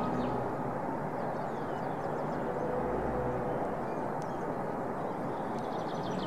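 Steady distant rumble of outdoor background noise, with faint bird chirps near the start and the end.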